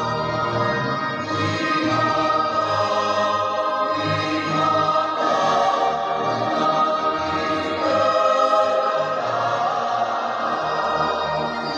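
Church choir singing a hymn in long held notes, with a keyboard accompaniment carrying a steady bass line.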